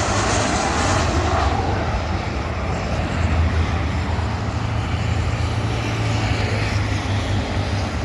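Jet engine rumble from a Boeing 737-400 freighter's CFM56 turbofans on final approach, a steady low roar whose higher hiss thins out after the first second or two.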